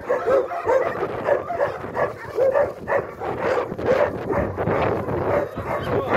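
A dog whining and yelping in short, repeated high cries, a few a second.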